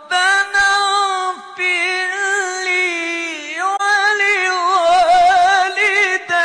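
Male Quran reciter's solo voice drawing out long melodic notes in ornamented recitation, with quick wavering trills in the second half and short breaks between phrases.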